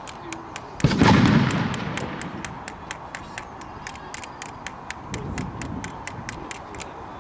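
A flintlock-fired black-powder cannon goes off once, a loud blast about a second in that dies away over the next second. It is the charge finally firing after a misfire, which the crew take to have cleared it.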